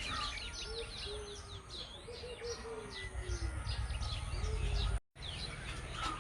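Many small birds chirping in quick repeated notes, with a low cooing bird and a steady low hum underneath. The sound cuts out for a moment about five seconds in.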